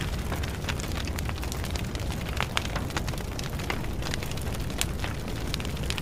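Fire burning: a steady low rumble with many scattered crackles and pops.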